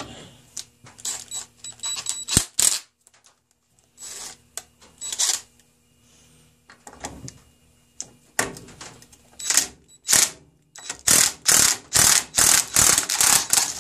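Cordless impact driver hammering in short bursts on a rusted, penetrant-soaked nut clamped in a bench vise, trying to break it loose. A few scattered bursts and metal clicks come first, then a quick run of about seven bursts near the end.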